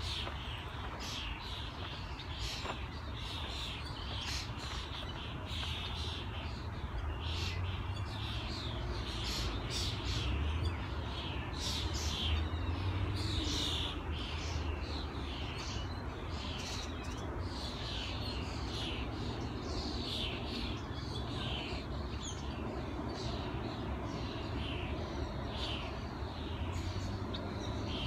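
Many birds calling at once, a dense run of short, quick, downward-sweeping chirps that keeps going throughout, over a steady low rumble.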